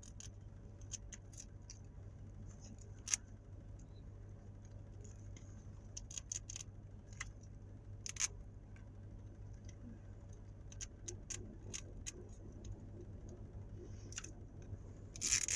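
Scattered small clicks and crinkles of the plastic wrap on an L.O.L. Surprise Fluffy Pets ball being picked at and peeled by hand. A few sharper clicks stand out about three seconds in, about eight seconds in and near the end, over a faint steady low hum.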